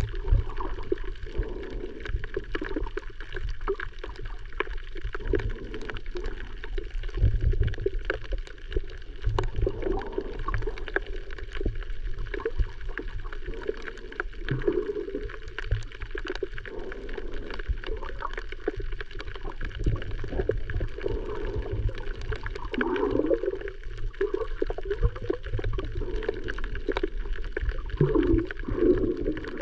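Muffled water sloshing and gurgling with small pops and clicks and a constant low rumble, the sound of water moving around a camera while snorkeling.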